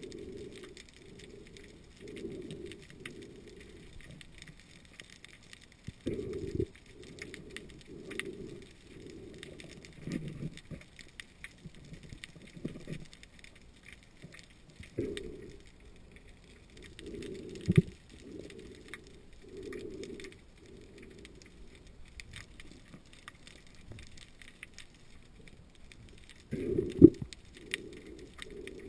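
Underwater sound through a diving camera: soft, muffled pulses of water movement about once a second, with faint scattered clicks and crackle, while a scallop is cut open with a dive knife. A few sharper knocks stand out, the loudest near the end.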